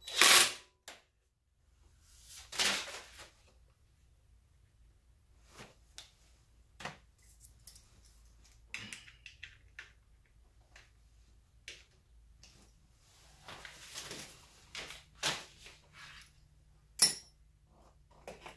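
Hand work on an ATV engine that is not running: irregular metal clicks, taps and light rattles of tools and parts, with a few louder scrapes, the sharpest a crisp clack near the end. A faint steady low hum lies underneath.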